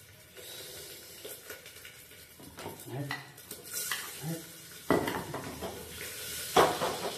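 Food sizzling in a metal cooking pot while a spoon stirs and scrapes against it, with two sharper utensil clanks, about five seconds in and near the end.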